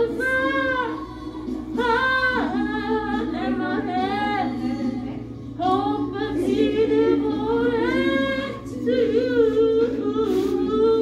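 A woman singing a song over music, in wavering, held notes with short breaks between phrases.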